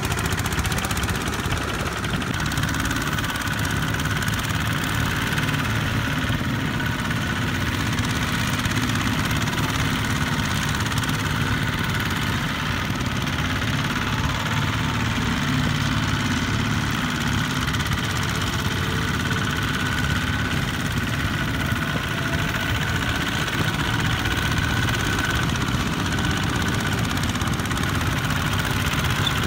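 Diesel engines of two-wheel walking tractors running steadily under load with a low chugging beat, hauling trailers of rice sacks across the field.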